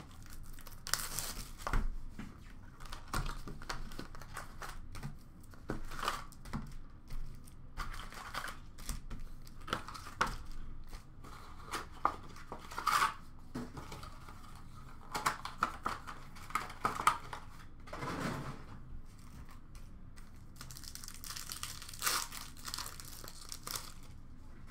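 Tearing and crinkling of card packaging as a hobby box of football trading cards is ripped open and its foil-wrapped packs are handled: a run of short, irregular rips and rustles.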